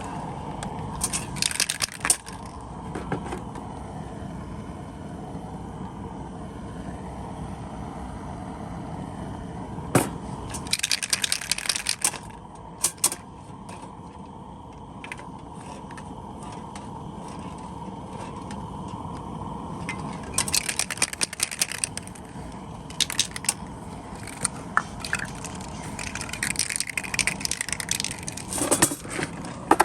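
Paint spray gun applying yellow colour coat to a car bumper in several short hissing passes of a second or two each, over a steady low hum, with a sharp click about ten seconds in.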